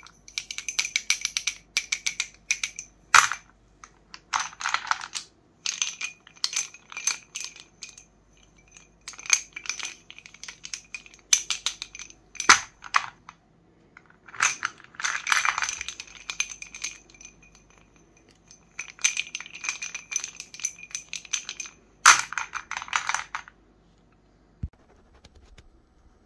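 Sticks of chalk clicking and clattering against each other and the plate as they are handled and lined up, in repeated bursts of light clicks with a faint ringing. Near the end it goes quiet except for one tap.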